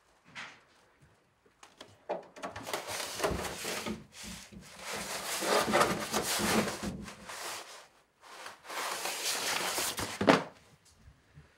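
Cloth curtain rustling and rubbing close to the microphone as the camera pushes through it, with a few light knocks and a sharper rub just after ten seconds in.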